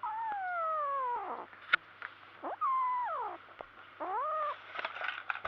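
Kitten yowling possessively over the feather toy it holds as prey: about three or four drawn-out, high calls that slide down in pitch. There is a sharp click between the first two calls and some rustling near the end.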